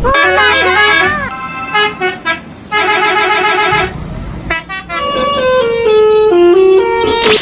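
Telolet bus horn, the Basuri type, playing a tune on several pitched tones. It opens with sliding notes, then short beeps and a warbling held chord, and ends with a stepped melody that falls near the end.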